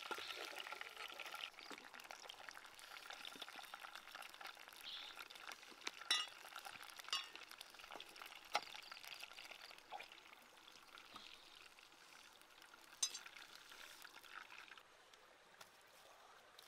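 Fish frying in hot oil in a clay pan, a sizzle that drops away after a second or two, followed by a few scattered light clinks and knocks.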